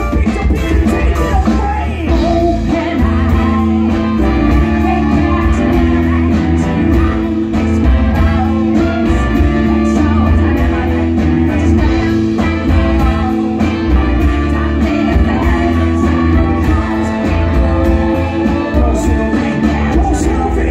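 Live brass band playing a hip hop and funk groove through a PA: sousaphone bass, trumpets, saxophones and trombone over a drum kit, with a vocalist at the microphone.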